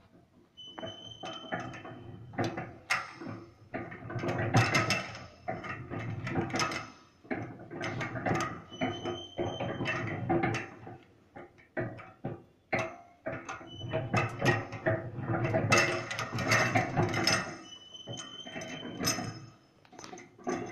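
Gear drive of an oil soap mixing machine running, its agitator paddles turning through the soap mix. It makes an irregular mechanical clatter of clicks and knocks, with a thin high whine that comes and goes. It starts about a second in and swells louder every few seconds.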